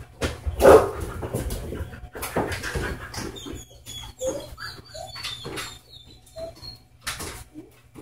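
A dog's feet knocking and thumping on a treadmill deck, loudest about a second in as it lands, with a run of short, high whines through the middle.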